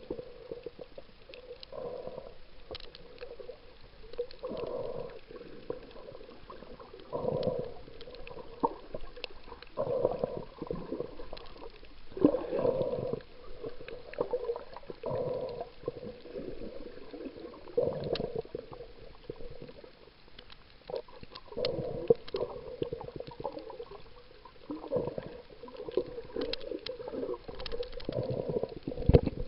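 Muffled underwater sound of a snorkeler breathing through a snorkel, each breath a dull, gurgling swell that comes back about every two to three seconds, with faint scattered clicks between.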